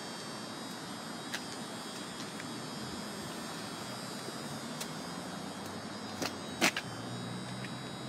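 Steady background hiss and hum with a few short clicks, the loudest about two-thirds of the way in.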